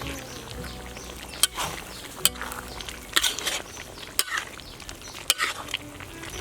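Snake meat stir-frying in a pan, sizzling, with a spatula stirring it in repeated scraping strokes against the pan about once a second.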